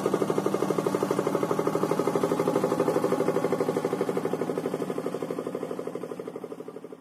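Small boat engine running with a steady, rapid chug of about ten beats a second, fading out near the end.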